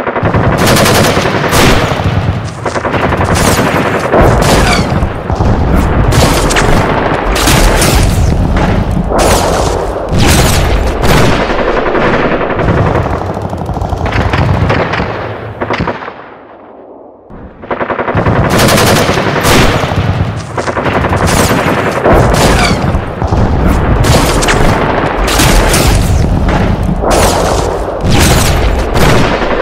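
Gun battle sound effect: dense, continuous machine-gun and rifle fire with heavy booms, easing briefly a little past halfway before the shooting resumes.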